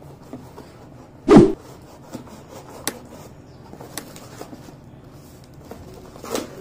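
A cardboard shipping box being torn open by hand. One loud, sharp sound comes about a second in, followed by scattered clicks and crackles of the cardboard and tape, and another burst of tearing near the end.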